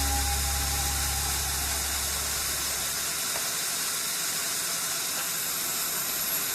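Steady hissing noise, with a low hum fading away over the first two to three seconds.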